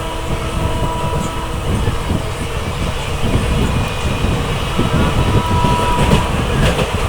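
A passenger train running on the track with a steady rumble. Faint thin squeals come and go, and a few clicks are heard near the end.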